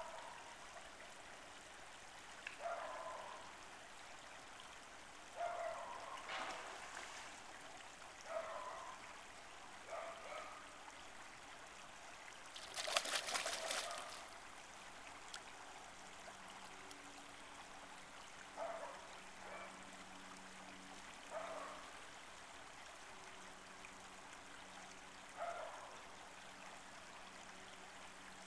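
Creek water running, with brief splashy gurgles every few seconds and a louder burst of splashing about halfway through as a spawning chinook salmon thrashes at the surface.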